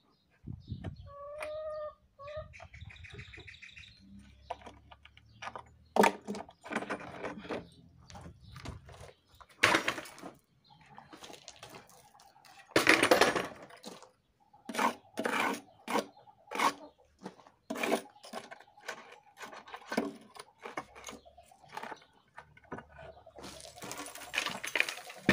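Irregular knocks and scrapes as the mold is pried and broken out of a freshly cast cement washboard sink. A chicken clucks briefly about a second in.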